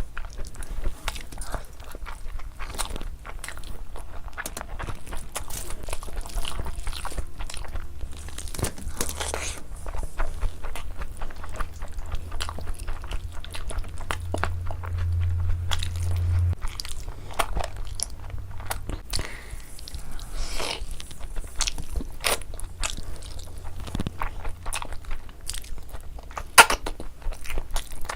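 Close-miked eating: repeated biting and chewing of spicy meat curry, rice and chicken, with many small crunches and crackles. One sharp, loud snap comes near the end.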